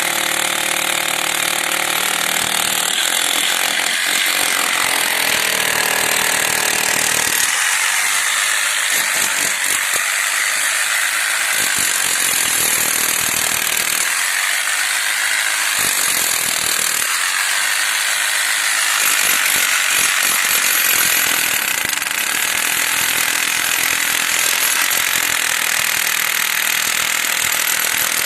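Power demolition hammer breaking a reinforced-concrete slab, running steadily with a rapid chatter of blows.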